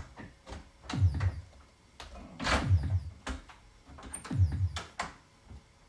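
1979 Williams Gorgar pinball machine's heartbeat background sound playing through its speaker: deep double thumps three times, about every second and a half to two seconds. Sharp clicks and knocks sound between the beats.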